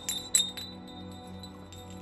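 Pieces of broken glass clinking and tinkling as they fall, with a few sharp clinks in the first half second and fainter ones after, over a low sustained film score.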